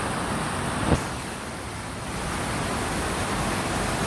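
Steady hiss of distant road traffic, with a single sharp click about a second in.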